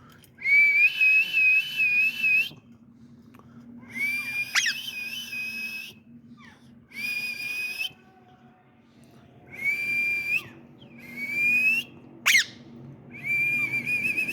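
Indian ringneck parrot whistling: six drawn-out, steady, high whistles, some with a slight warble. Two quick sweeping squeaks come partway through.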